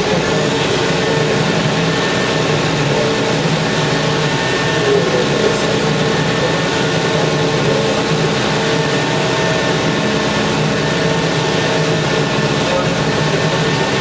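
Steady drone of heavy machinery running, engine-like, with several constant tones and no change in pace.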